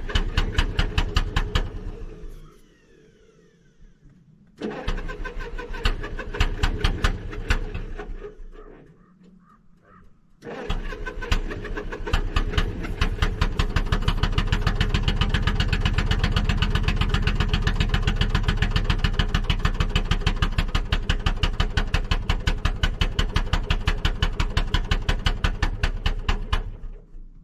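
Pony motor of a long-idle Caterpillar D8 bulldozer being cranked over in three tries to start it. It turns over in a fast, even rhythm: two short tries, then a long one of about sixteen seconds.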